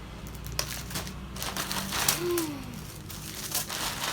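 Plastic packaging crinkling and rustling in irregular bursts as parcel items are handled and opened.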